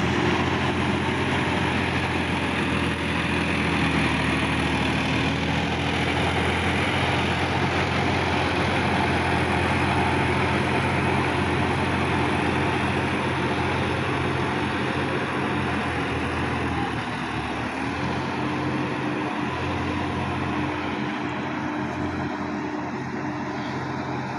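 Sonalika DI-50 RX Supreme tractor's diesel engine running steadily under load as it pulls a tillage implement through wet ground. Its pitch dips briefly twice, and it grows a little fainter near the end as the tractor moves off.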